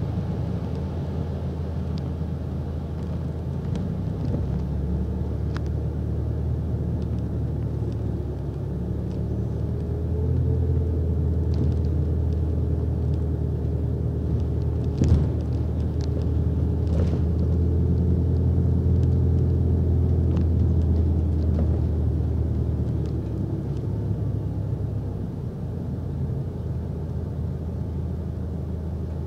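Interior sound of a single-deck bus on the move: a steady engine and road rumble that grows louder about a third of the way in and eases off again near the end. One sharp knock or rattle about halfway through.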